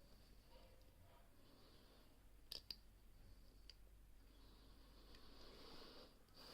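Faint clicks of home-made lock picks and tension tool working inside an all-brass five-lever padlock: two sharp clicks close together about two and a half seconds in, and a softer one a second later, over a faint hiss.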